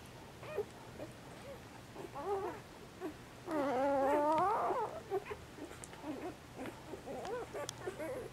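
Newborn Catahoula leopard dog puppies squeaking and whimpering in short, high cries, with one longer wavering cry about halfway through.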